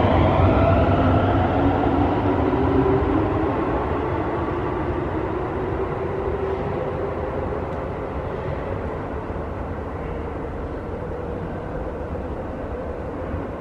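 Keio 9000-series electric train pulling out of an underground station: its motor whine rises gently in pitch over the rumble of the wheels, then fades steadily as it goes away into the tunnel.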